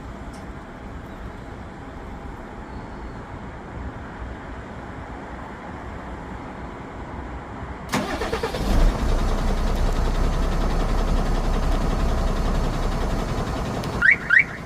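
Tata Daewoo Maxen truck's diesel engine cranking and catching about eight seconds in, started by a remote-start alarm system, then idling steadily. Two short rising chirps near the end.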